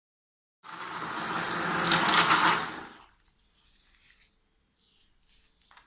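Immersion blender running in a bowl of baghrir batter (fine semolina, flour and water). It starts about half a second in, gets louder, and stops after about two and a half seconds; faint light clinks follow.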